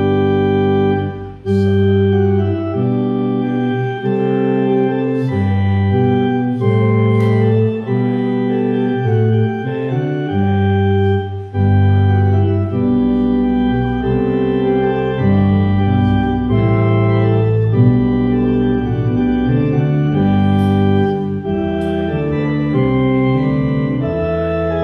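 Church organ playing a slow piece in held chords that change about once a second, with a few faint clicks over it.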